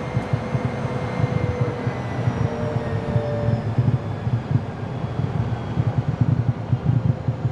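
Cessna Citation CJ3+'s twin Williams FJ44-3A turbofan engines running at low power, heard inside the cockpit: a steady rumble with a faint high whine that sinks slightly in pitch.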